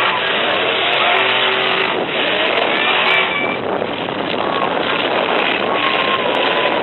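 Several full-size pickup trucks' engines revving hard together, a dense loud din with engine pitches rising and falling.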